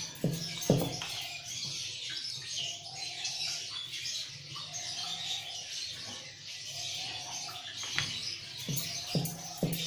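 Many birds chirping steadily, with a wooden rolling pin knocking against a wooden board a few times just after the start and again near the end as dough is rolled out.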